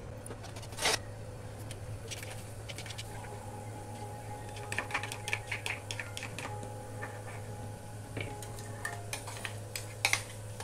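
Cumin seeds frying in hot oil, starting to sizzle and splutter with scattered crackles and pops, denser around the middle and with a couple of sharp pops near the end, over a steady low hum.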